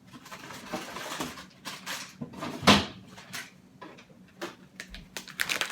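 Scattered knocks and clicks of kitchen things being handled, with one sharper, louder knock a little under three seconds in.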